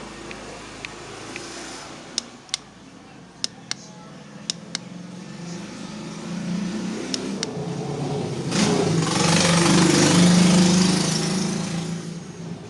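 A string of sharp clicks, then a motor vehicle passing: its engine grows louder to a peak about nine to eleven seconds in and fades away near the end.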